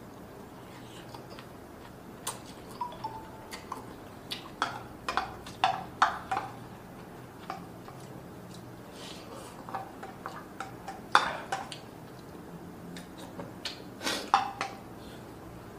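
Close-miked eating: scattered wet mouth clicks and smacks as curry noodles are chewed, with a few sharp clinks of a spoon against the pan.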